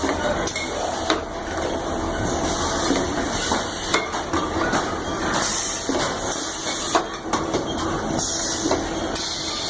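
Factory floor noise: machinery running steadily, with scattered metallic clanks and knocks.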